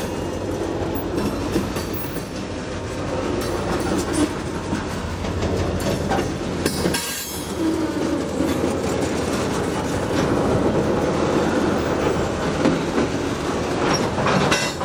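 A pair of diesel-electric freight locomotives passing close by at low speed, engines running as they pull a loaded grain train, with the wheels clattering over the rails.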